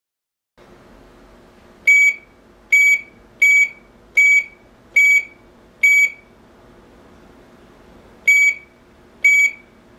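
Electronic beeps from an AAS GSM cellular alarm panel: six short, high beeps at an even pace of a little more than one a second, a pause, then two more near the end.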